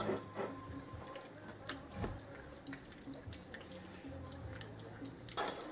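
Faint wet squishing and small sticky clicks of hands rubbing an oily marinade over and under the skin of a raw whole chicken.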